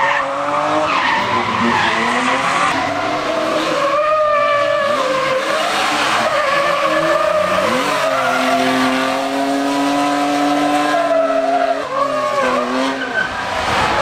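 BMW drift cars sliding through hairpins, engines revving up and down with tyres screeching. About eight seconds in a car passes close, its engine held at steady high revs for a few seconds before the revs fall and waver.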